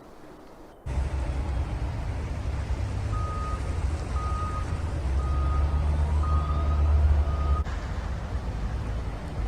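A vehicle's reversing alarm beeping five times, about once a second, over the low rumble of a heavy engine.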